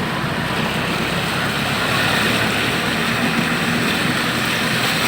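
Traffic in floodwater: vehicle engines running under a steady wash of noise.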